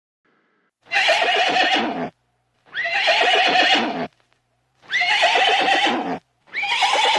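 A horse neighing four times, about two seconds apart. Each whinny lasts just over a second, falls in pitch, and the four calls are alike.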